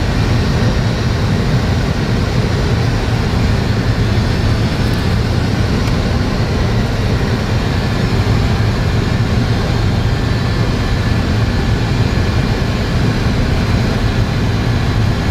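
Steady low rumble of a Boeing 747SP's engines and rushing airflow, heard from inside the aircraft on final approach.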